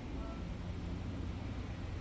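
Steady low rumble and hiss of a jet airliner flying high overhead.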